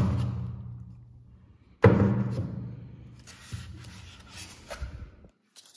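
Background music with deep struck notes: one at the start and another just under two seconds in, each ringing and fading away. The music cuts off about five seconds in.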